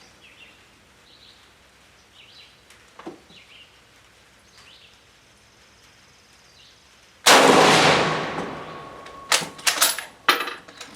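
A single rifle shot from a Spanish FR7 bolt-action rifle firing 7.62×51 NATO ammunition: a sharp crack about seven seconds in with a long echoing tail. About two seconds later comes a quick series of metallic clicks and clacks as the bolt is worked to eject the case.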